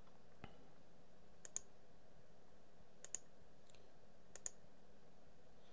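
Computer mouse button clicking a few times, mostly as quick press-and-release pairs, as spline points are placed one by one.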